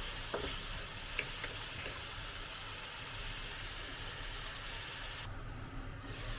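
Chicken and tomato paste frying in a pan: a steady sizzle, with a few light utensil clicks in the first two seconds.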